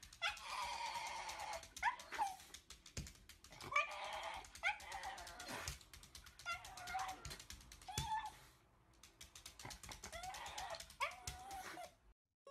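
Black-and-tan Shiba Inu whining and yowling at the camera: a run of about eight high cries that bend up and down in pitch, several lasting over a second, with short pauses between them.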